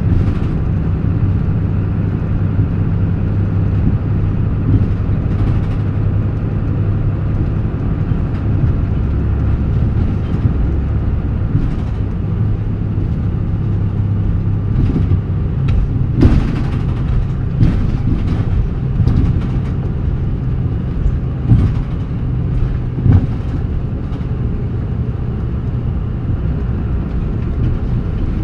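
Mitsubishi Fuso Aero Midi (KK-MK27HM) bus diesel engine running under way, heard from inside the cabin as a steady drone that shifts in pitch a few times as the bus changes speed. Short knocks and rattles come through now and then, mostly in the second half.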